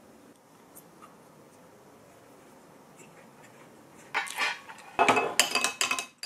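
Metal cutlery clinking and scraping against dishes. After a quiet start there is a scrape about four seconds in, then a quick run of sharp, ringing clinks about a second later.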